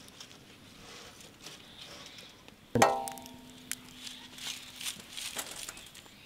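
Metal cookware struck once, a loud clang about three seconds in that rings on as a steady tone for over two seconds. Scattered light clicks and rustling go on around it.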